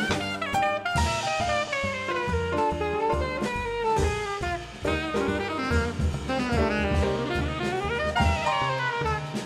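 Jazz band playing an instrumental break: a saxophone leads with sliding, bending phrases over grand piano, upright double bass and drum kit keeping a steady beat.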